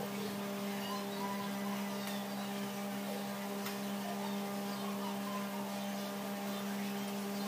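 Potato sticks deep-frying in hot oil in a steel wok, sizzling steadily, over a steady low hum.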